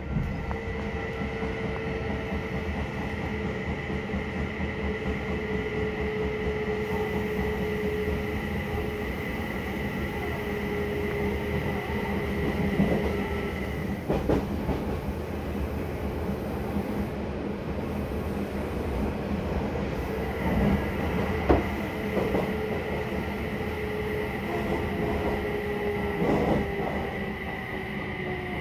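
Odakyu 3000 series electric train heard from inside the car: a steady rumble of wheels on rail with the Mitsubishi IGBT inverter's high whine and the traction motors' tone. The whine stops about halfway through and comes back a few seconds later. Near the end the motor tone falls slowly in pitch as the train slows for the station, with a few sharp rail-joint clacks along the way.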